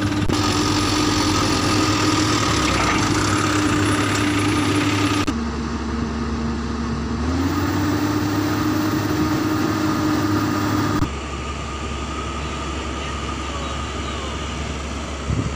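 Heavy diesel engines running steadily at a worksite with a constant hum. The sound changes abruptly about five and eleven seconds in, and the engine note drops lower for a couple of seconds before climbing back up.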